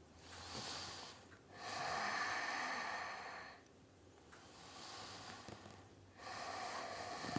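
A man breathing deeply and slowly in and out: four long breath sounds with short pauses between them.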